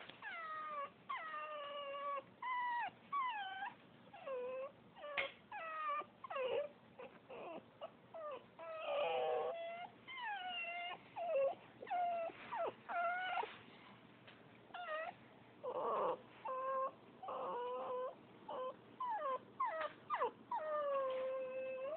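West Highland White Terrier crying: a long run of high whines and whimpers, most sliding down in pitch, one after another with short breaks between.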